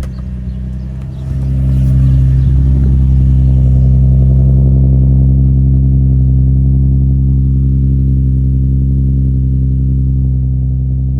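Infiniti G35's VQ35DE 3.5-litre V6 running through a Z1 exhaust with Tomei piping, just after a hard start. The engine note steps up about a second and a half in, then holds a steady idle that eases slightly toward the end.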